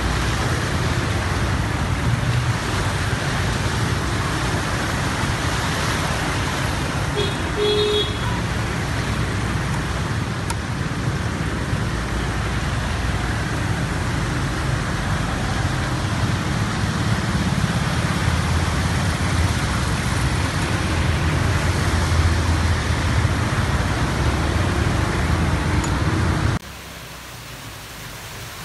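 Traffic driving through a flooded street in heavy rain: a steady rush of water and rain with engines rumbling underneath, and a brief car horn toot about seven seconds in. Near the end the sound cuts abruptly to a quieter steady hiss of water.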